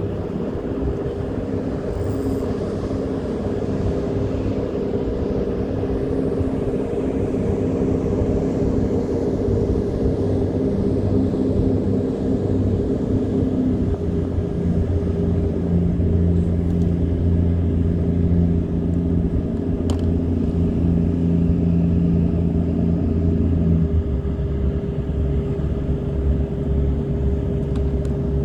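An engine running steadily, its tone shifting about halfway through and again near the end.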